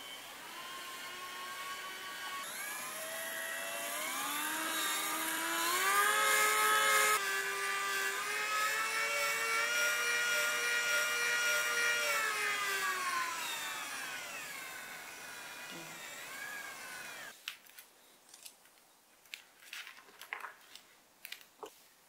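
Small 12 V DC motor turning the exoskeleton arm's crankshaft linkage: a whine that climbs in pitch over the first several seconds, holds steady, then slows and falls in pitch before cutting off about 17 seconds in. A few light clicks and taps follow.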